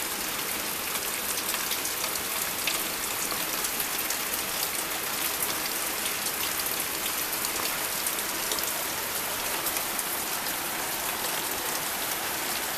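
Steady hiss of heavy rain mixed with the rush of floodwater running down into a deep ditch, with scattered taps of drops on top.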